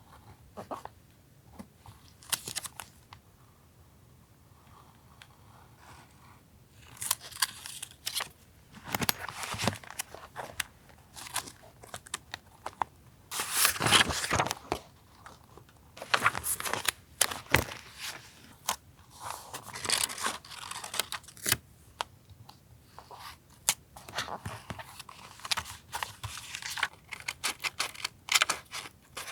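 Paper being handled for a collage: sheets rustled, crinkled and torn in repeated short bursts, after a few quiet seconds with a couple of light taps.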